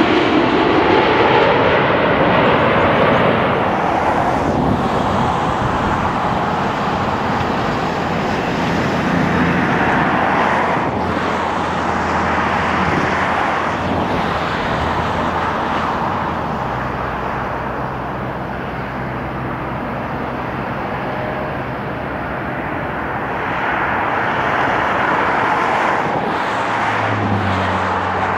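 Jet airliner engine noise on approach to land: a steady rumble and whine as a Boeing 787-9 passes overhead and fades away, then a British Airways Boeing 777-300ER with GE90 turbofans comes closer. The rumble swells again near the end, and a low hum appears.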